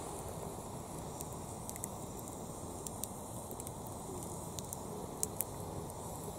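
Wood campfire crackling, with scattered sharp pops over a low steady background; two louder pops come a little after five seconds in.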